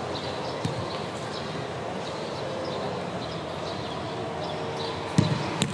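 Football free-kick practice: two sharp thuds of a football being struck, about half a second apart near the end, over a steady open-air background hiss.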